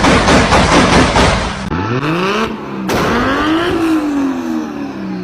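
Toyota 2JZ straight-six engine, heard in short cut-together clips. It opens with loud, harsh full-throttle engine noise. About a second and a half in, this gives way to a rev whose pitch climbs and drops. Then comes a longer pull that climbs and slowly winds back down.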